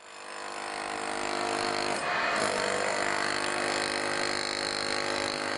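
A power tool's motor running steadily. It comes up out of silence over about a second, then holds an even, machine-like tone.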